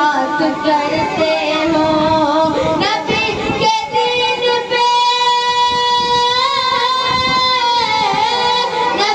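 A boy singing a naat (Urdu devotional song in praise of the Prophet) solo without instruments, in a long melismatic line; about four seconds in he holds one high note for several seconds before gliding down.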